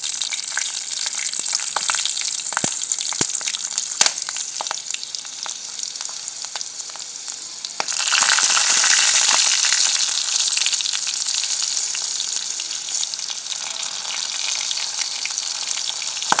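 Whole green chillies and cumin seeds sizzling in hot oil in a kadhai, with sharp clicks of a ladle against the pan in the first few seconds. The sizzle surges louder about eight seconds in, then slowly eases.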